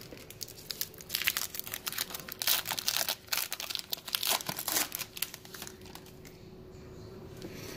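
Foil wrapper of a Topps Update baseball card pack being torn open and crinkled in the hands: a quick run of crackles for about five seconds, dying down near the end.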